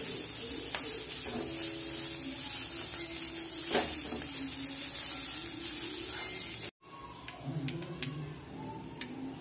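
Shredded vegetables (cabbage, carrot, beans, onion) sizzling in hot oil in a kadai while a metal spatula stirs and scrapes through them. About two-thirds of the way through, the sound cuts out abruptly and returns quieter, with a few light taps of the spatula on the pan.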